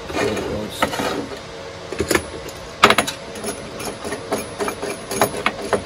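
Irregular knocks and clicks from handling a plastic-bodied disc sander and a small metal clamp on a wooden workbench, the loudest knock about three seconds in.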